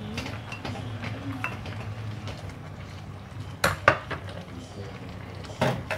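A spatula stirring soup in a clay pot, with soft scraping and small clicks over a steady low hum. A few sharp knocks of kitchenware come about two-thirds of the way in and again near the end.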